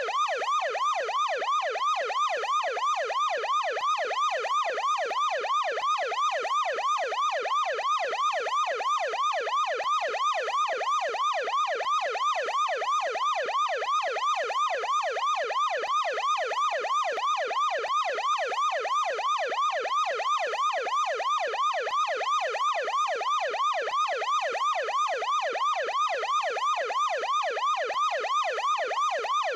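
Ambulance siren on its yelp setting: a rapid, evenly repeating rise and fall in pitch, several sweeps a second, held at a steady level.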